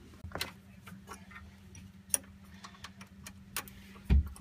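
Scattered light clicks and taps of hand tools and metal parts being handled during diesel engine work, over a steady low hum. A single heavier thump comes near the end.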